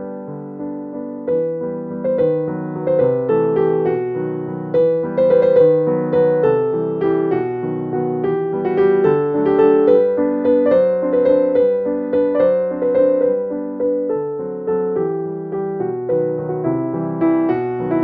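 Background music: a gentle piano melody with evenly struck notes and chords.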